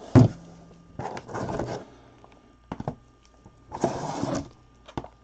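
Shrink-wrapped cardboard hobby boxes and their shipping case being handled. There is a thump just after the start as a box is set down, then two stretches of cardboard sliding and scraping, with a few light knocks between.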